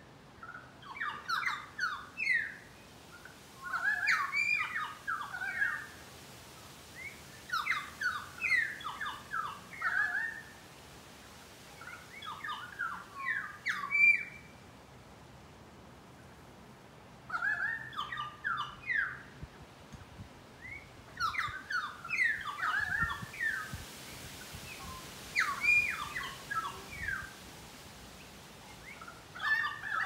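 Pied currawongs calling: repeated phrases of short, ringing notes that rise and fall, each phrase a second or two long and coming about every three to four seconds.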